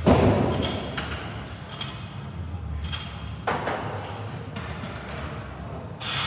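Gym weight noise: a heavy thud at the start, the loudest sound, followed by scattered lighter clanks and knocks of barbell plates and equipment at irregular intervals.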